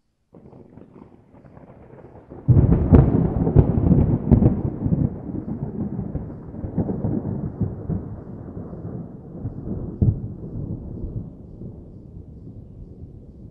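Thunder: a faint crackling rumble, then a sudden loud thunderclap about two and a half seconds in, with sharp crackles, that rolls away in a long rumble and slowly fades.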